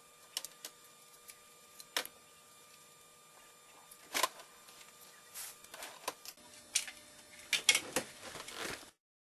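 Irregular clicks, taps and knocks of small hard parts being handled, most likely the Nerf DT3 blaster being worked on, sparse at first and denser in the last few seconds, over a faint steady hum; the sound cuts off abruptly near the end.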